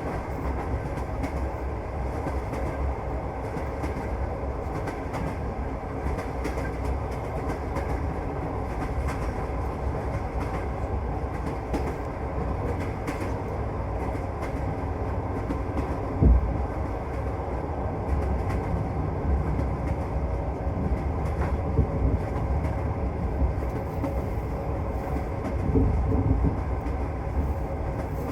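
Passenger train's wheels running on the rails, heard from inside the carriage: a steady rumble with clacks, and one sharp knock about halfway through.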